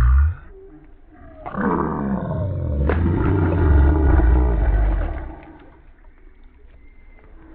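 Slowed-down audio of a fish being dropped back into shallow creek water. The splash is stretched into a deep, drawn-out rumble with a falling sweep, loud for a few seconds before dying away to low noise.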